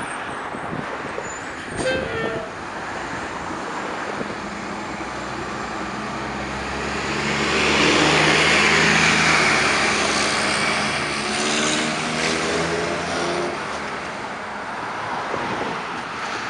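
Road traffic passing close on a busy boulevard: a city bus goes by, then a stream of cars and a pickup truck. An engine drone builds to its loudest a little past the middle, then fades before the end.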